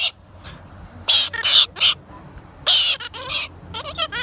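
Galah (rose-breasted cockatoo) screeching: a run of harsh, loud screams about a second in and again near three seconds, then quieter wavering chatter near the end. This screaming is natural galah behaviour, which the owner says signals excitement, not pain.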